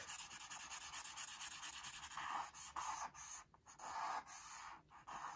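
Charcoal stick scratching across sketchbook paper in quick, repeated downstrokes, shading a dark area. The strokes come in fast runs, with two brief pauses in the second half.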